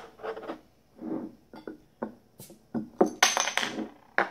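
A bottle opener levering the cap off a bottle of farmhouse ale. There is a short hiss of escaping gas about three seconds in, then a sharp click as the metal cap comes free or drops onto the table, with light clinks of glass and metal before it.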